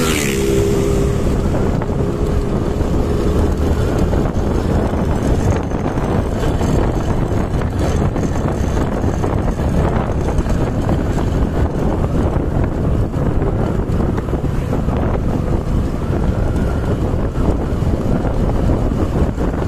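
Steady wind rush on the microphone over low road and engine noise from a moving vehicle. In the first few seconds a passing motorcycle's engine hum is heard, its pitch dropping slightly as it goes by.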